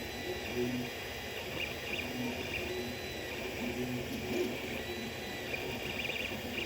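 Creality CR-10 3D printer's stepper motors singing short steady tones that change pitch with each move, over a steady hum.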